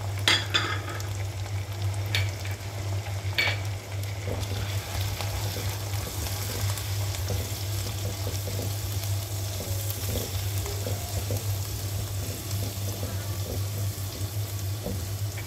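Onion, tomato and ground spices sizzling in hot oil in a non-stick wok while being stirred with a spatula, with a few sharp scrapes of the spatula in the first few seconds. A steady low hum runs underneath.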